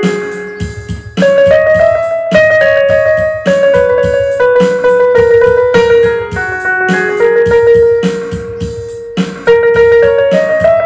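Electronic keyboard playing a slow melody over chords through studio monitors, each note struck and left to ring, with a short lull about half a second in before the playing picks up again.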